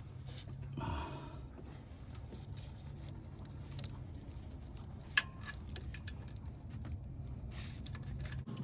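Scattered metallic clicks and clinks of hand tools working the bolts of a truck's thermostat housing, with one sharp click about five seconds in. A steady low hum runs underneath and stops just before the end.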